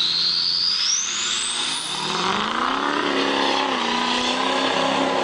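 An engine revving up and then holding at a steady speed, with a high whine that rises sharply over the first two seconds.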